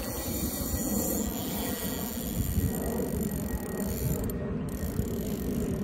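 Ultralight spinning reel's drag clicking rapidly and steadily as a big hooked grass carp runs and pulls line off the spool.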